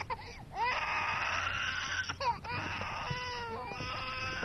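A woman crying: short whimpering, sobbing cries that rise and fall in pitch, then a longer held cry.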